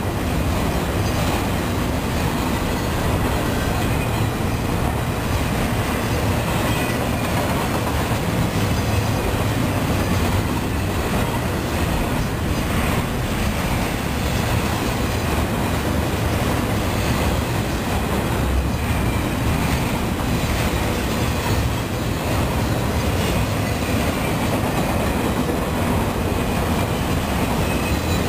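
Norfolk Southern intermodal freight train's flatcars, loaded with highway trailers, rolling steadily past: a continuous rumble of steel wheels on rail with a few faint clicks from the wheels.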